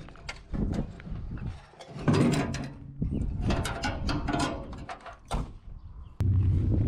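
Irregular clicks, rattles and scrapes of a tie-down strap being pulled tight around a metal jerry can in a mini truck's bed. Near the end a steady low hum of the mini truck's engine running cuts in suddenly.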